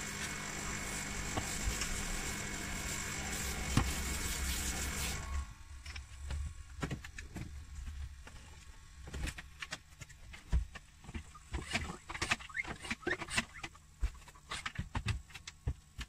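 Kärcher carpet spray extractor running steadily as its hand nozzle works the car's floor carpet, cutting off about five seconds in. After that come scattered small clicks and crackles.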